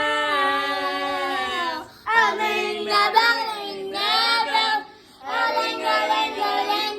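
A woman's voice singing unaccompanied in three phrases, the first a long held note, with short breaks between them.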